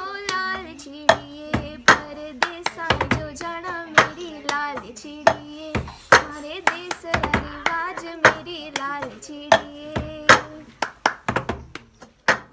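A woman singing along to the cup game: hand claps and a plastic cup slapped and tapped on a tabletop in a quick, even rhythm. Her singing stops near the end while a few more cup taps follow.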